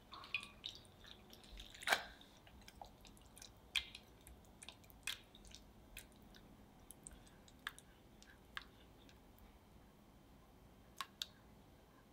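Silicone spatula stirring soaked gelatin into thick chocolate glaze in a saucepan: soft wet squishing with irregular light taps of the spatula against the pot. The sharpest tap comes about two seconds in, and there are two more close together near the end.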